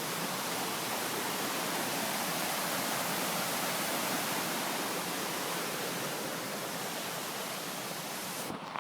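Steady rushing of water falling over a waterfall, a constant hiss with no rhythm. Its upper hiss drops away abruptly near the end.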